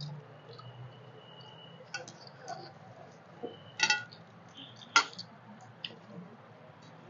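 Eating by hand from stainless-steel plates: fingers mixing rice against the metal with small clicks and mouth sounds, and two louder ringing clinks of steel about four and five seconds in.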